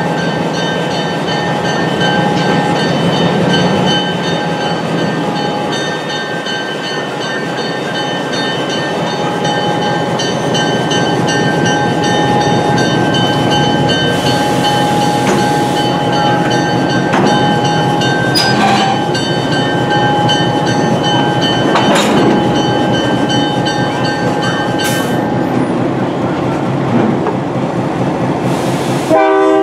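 Excursion train rolling along the track with a steady rumble and a few sharp clicks from the wheels crossing rail joints. Twice there is a brief hiss.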